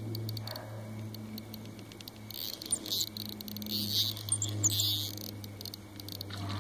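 A kid's fishing rod reel being cranked, a fine rapid clicking that comes in spells and is loudest around the middle, as a small bass snagged in weeds is reeled in. A steady low hum runs underneath.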